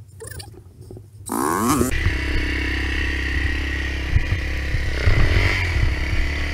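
A dirt bike's single-cylinder four-stroke engine starts about a second in, its pitch rising as it catches, then runs steadily with a brief rev about five seconds in. Before it starts, only light scuffs and clicks are heard.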